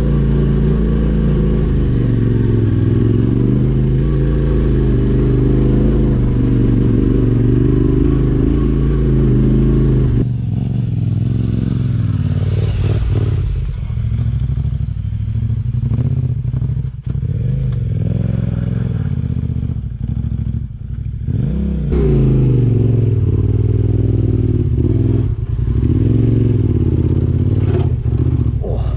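Yamaha Ténéré 700 parallel-twin engine pulling up a steep dirt track, its pitch rising and falling with the throttle. For about ten seconds in the middle the engine is fainter and broken by knocks and clatter, before it comes back loud and steady near the end.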